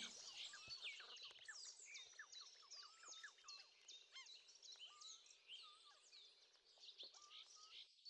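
Faint birdsong: many quick, overlapping chirps and short gliding whistles from several birds, growing fainter toward the end.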